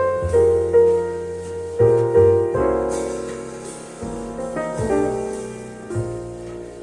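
Recorded piano music played back through KEF Q300 loudspeakers: a slow instrumental passage of chords and melody notes, each struck and left to fade, with bass notes underneath.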